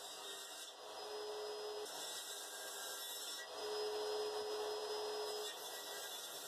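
Table saw running, its blade cutting kerfs for half-lap notches in a pine batten on a crosscut sled. A steady hum comes in twice, the second time longer and louder.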